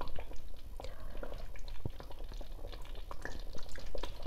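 Soft irregular smacking and clicking mouth sounds of someone tasting peanut sauce to check it for salt.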